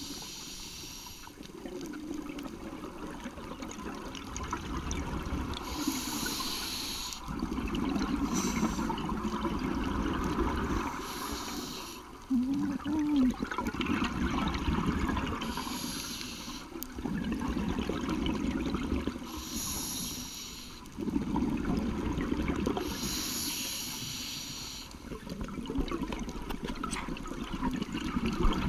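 Scuba diver breathing through a regulator underwater: a short hiss on each inhale, then a longer bubbling rush of exhaled air, repeating about every four to five seconds.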